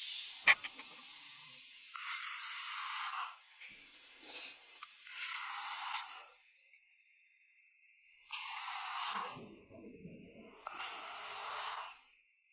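A diver breathing through a diving helmet: four hissing breaths of about a second each, roughly three seconds apart, one with a low bubbling rumble, after a sharp click about half a second in.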